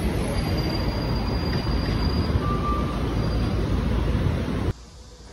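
Loud, steady city street noise, a low rumble of traffic, that cuts off abruptly near the end.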